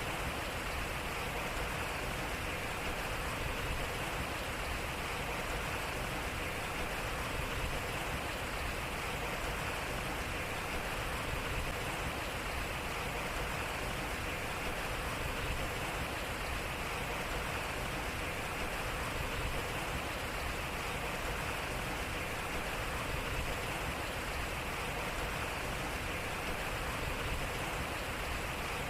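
Water flowing and splashing at a turning water wheel: a steady, even rush with no distinct knocks or creaks.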